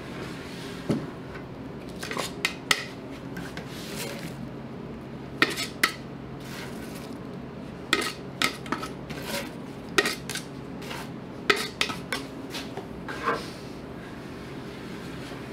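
Metal gallon can clinking irregularly, about a dozen sharp metallic taps, as a paint brush is dipped into thick paint stripper and wiped against the can's rim between strokes.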